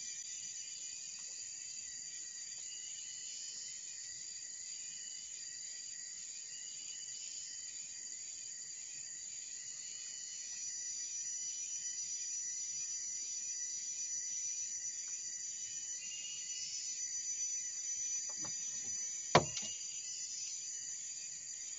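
Chorus of insects calling steadily, a dense high-pitched drone with repeated short chirps over it. A single sharp knock about nineteen seconds in.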